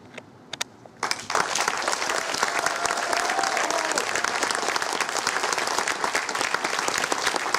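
Audience applauding, breaking out about a second in after a brief lull and going on steadily.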